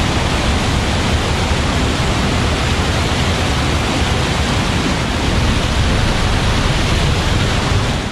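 Loud, steady rushing of a fast mountain stream as whitewater pours over boulders close by.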